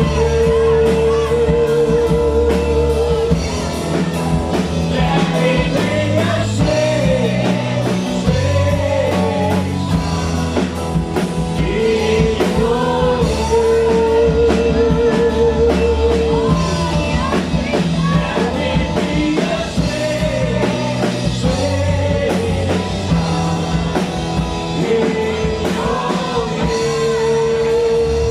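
Live worship band music with singing, over a steady bass and drums. A long held note with vibrato comes back three times: near the start, about midway and near the end.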